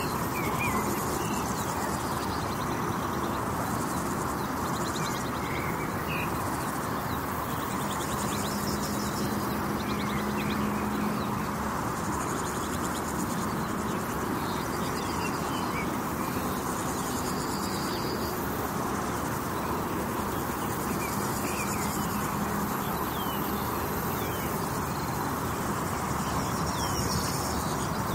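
Steady drone of traffic on a nearby highway under a summer field ambience: birds chirping now and then and insects buzzing in patches that come and go. A passing vehicle's engine hum stands out for a few seconds about a third of the way in.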